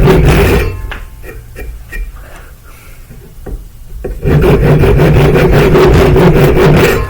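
Wood being rubbed hard and fast by hand, the sound of hand-shaping a wooden knife. A bout of rapid strokes ends about half a second in. A second, longer bout of about three seconds starts just past the middle, with a few light knocks in the quieter stretch between.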